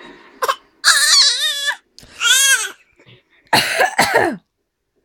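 A baby and an adult trading short coughs back and forth: about five brief coughing sounds, several of them coming out as high, squeaky voiced coughs from the infant.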